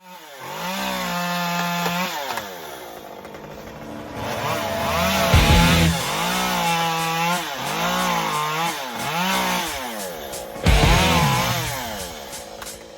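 Two-stroke chainsaw revving up and down over and over, its pitch rising and dipping as if working through wood, with a heavy thump about five seconds in and again near eleven seconds.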